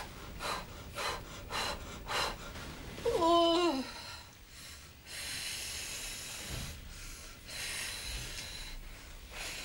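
A woman in active labour breathing through a contraction: a run of short, quick breaths, then a loud wavering moan about three seconds in, followed by long drawn-out breaths out.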